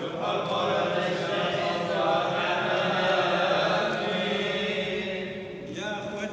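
A man chanting a Syriac Orthodox liturgical melody into a microphone, in long held notes with wavering ornaments, then a shorter phrase near the end.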